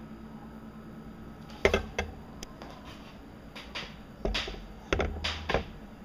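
Handling knocks and clicks: a few sharp clicks with dull thuds about two seconds in, then another cluster between four and six seconds, over a faint steady hum.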